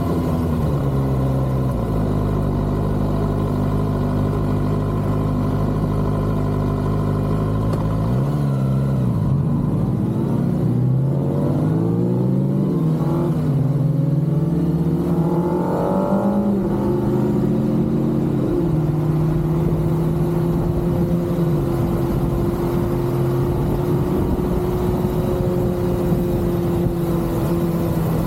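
Kawasaki ZX-6R inline-four sport-bike engine under way, holding a steady pitch, then about eight seconds in a run of repeated rising revs with gear changes as it accelerates, settling back to a steady cruise about two-thirds of the way through.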